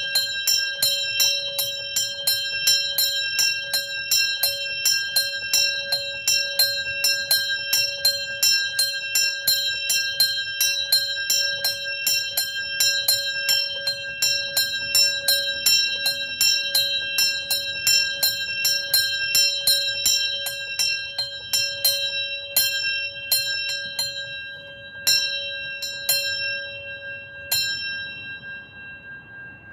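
A small swinging bell being rung, its clapper striking quickly and evenly, about three times a second, over a steady ringing tone. In the last several seconds the swing dies away and the strikes thin out to a few single, spaced strokes that ring on and fade.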